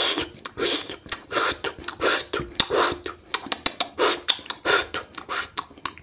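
Fast ASMR mouth sounds and hand sounds made close to the microphone: rapid bursts of hissing and clicking, about two or three a second.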